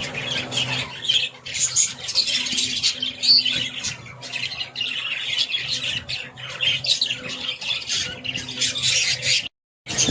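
Many budgerigars chattering and squawking together in a dense, continuous din, over a low steady hum. The sound cuts off abruptly shortly before the end.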